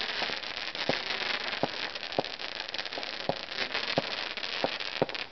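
Consumer fireworks crackling and fizzing steadily, with a short pop about every half second as more shots go off.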